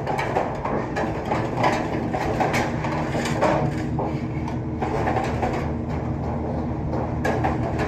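Pedestal spot welder humming steadily while a stainless steel gas stove frame is shifted between its electrodes, with frequent clicks and clanks of the sheet metal.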